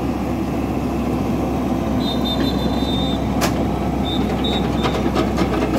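Low, steady engine noise from a tracked excavator hauling a mud-stuck off-road buggy, with the buggy's engine also running. A high, steady tone lasts about a second near the middle, followed by a sharp click.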